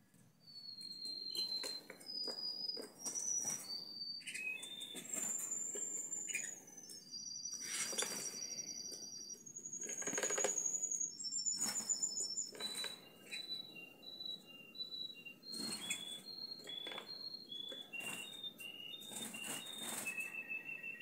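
A domestic canary splashing and fluttering its wings in the water of a clip-on bird bath, in many short spells, while a canary sings: clear held whistles and fast trills of repeated notes, stepping up and down in pitch, starting about a second in.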